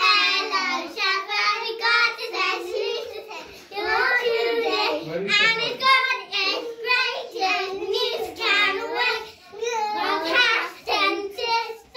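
Young girls singing a song together in high voices, in short phrases sung syllable by syllable at a steady pitch.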